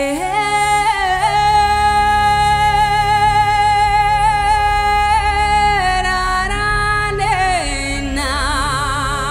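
Music: a woman's voice singing long held notes over a low sustained accompaniment, moving between a few notes and taking on a wide vibrato near the end.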